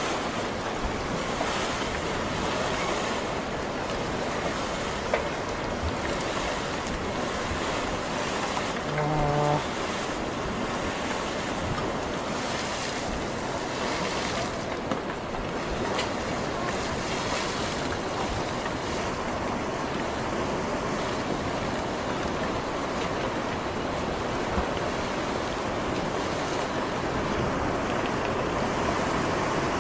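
Steady rushing noise of tsunami floodwater. About nine seconds in there is a brief, louder pitched tone lasting about half a second.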